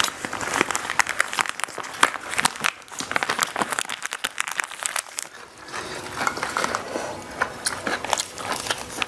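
Close-miked eating: plastic food-prep gloves, rice paper and lettuce crinkling as wraps of crispy fried red tilapia are rolled, with crisp crackling bites and chewing. Dense clicks and crackles throughout, easing off briefly in the middle.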